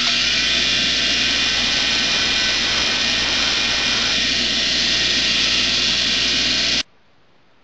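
Bench grinder wheel grinding the side of a flattened steel nail flat: a loud, steady, hissing grind over the motor's hum, cutting off abruptly about seven seconds in.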